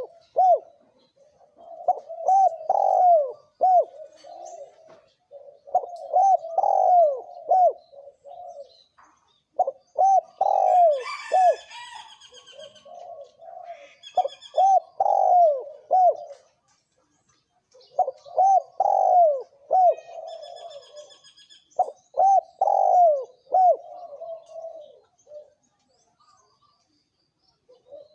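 Spotted dove cooing, repeating a phrase of several low, curving coo notes every three to four seconds. Higher-pitched chirping from smaller birds comes in behind it, most prominently about ten seconds in.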